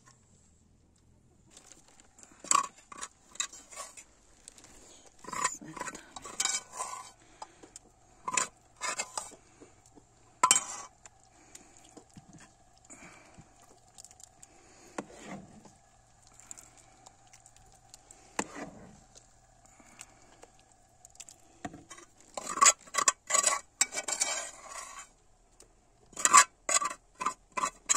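Metal ladle knocking and scraping against the inside of a large metal pot while rice is stirred into buttermilk, in irregular bursts of clinks that come thickest near the end.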